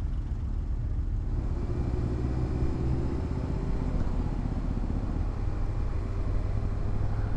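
Kawasaki Ninja 636 inline-four sport bike engine running as the bike rides off and along, under a steady low rumble of wind and road noise on a helmet-mounted microphone.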